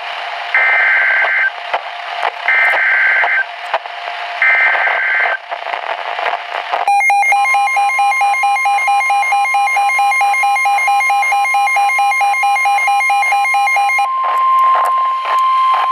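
Emergency Alert System weather warning heard through a radio receiver over steady hiss: three short bursts of warbling SAME header data tones about a second apart, then the long steady weather-radio attention tone. A fast pulsing electronic alarm beep sounds with the tone for about seven seconds, and the tone runs on alone near the end.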